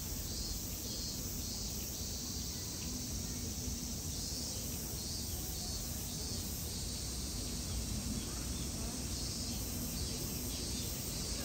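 Steady chorus of summer cicadas, a continuous high-pitched shrill with a faint pulsing, over a low steady background rumble.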